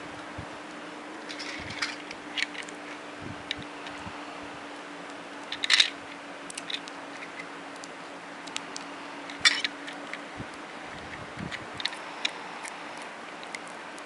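Scattered small clicks and clatter of plastic toy cars being handled, two sharper clicks standing out about six and nine and a half seconds in. A faint steady low hum runs underneath and stops about ten seconds in.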